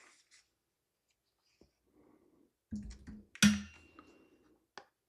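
A small cardboard retail box handled in the hands: light rustling and scattered clicks, with a sharp tap about three and a half seconds in.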